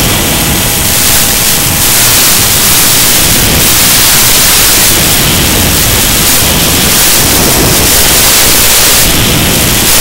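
Loud hiss and rush of airflow over the onboard camera microphone of a Mini Skywalker FPV plane in flight, swelling for most of the stretch and easing near the end. Faint steady tones from the electric motor run underneath.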